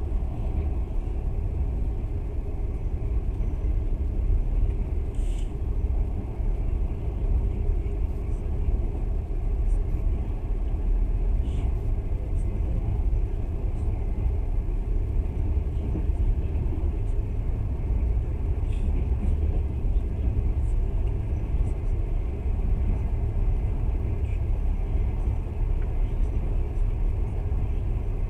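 Passenger train running at speed, heard from inside the carriage: a steady low rumble of wheels on rails, with a few faint brief clicks.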